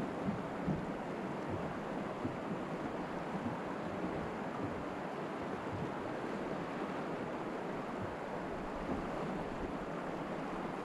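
Steady rush of river water running over a shallow riffle, with some wind on the microphone.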